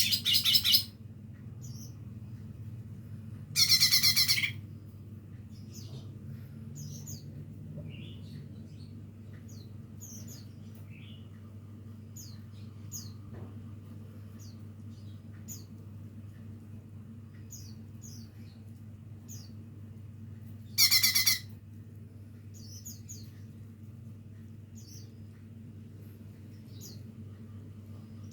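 Young green leafbird (cucak ijo) practising its song: many short, faint chirps, broken by three loud harsh calls of about a second each, one at the start, one about four seconds in and one about twenty-one seconds in, over a steady low hum.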